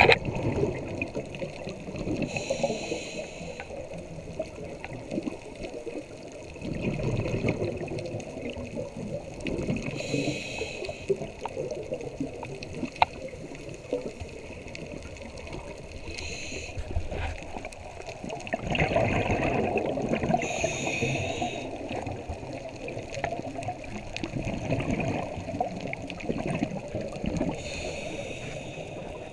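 Underwater ambience with a scuba diver breathing through a regulator: a short hissing inhale every several seconds and a longer bubbling exhale between them. One sharp click about halfway through.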